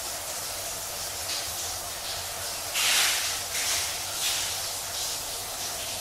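Shower running: water spraying steadily from a hand-held shower head with an even hiss. A brief louder gush comes about halfway through, followed by a couple of smaller ones.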